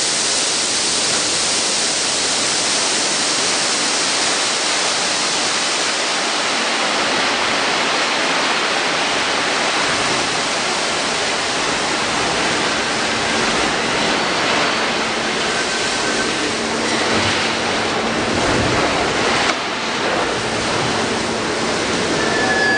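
Iron ore wagon tippler at work: a loud, steady rushing noise, hissing most in the first several seconds. In the second half a low mechanical rumble and a few faint metallic squeals come in.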